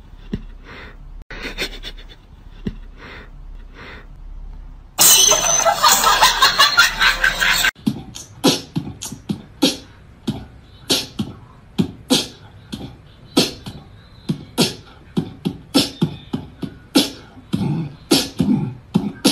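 A few seconds of loud, dense noise, then a steady run of short, sharp percussive beats, about three a second.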